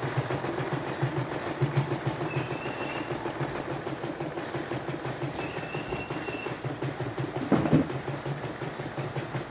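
CNY E960 embroidery machine stitching a design: the needle runs in a fast, even mechanical rhythm, with a single louder knock about three-quarters of the way through.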